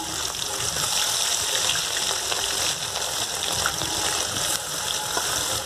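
Rui (rohu) fish pieces sizzling steadily as they shallow-fry in hot mustard oil in a kadai, browning on both sides.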